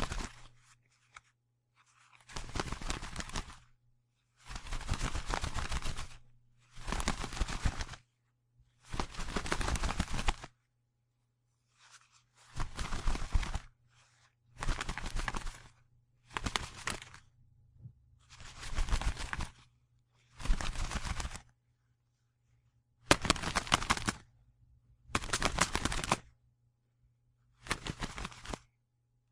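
Bird wings flapping in a series of separate flurries, each a second or two of rapid fluttering beats, about a dozen in all with short silences between.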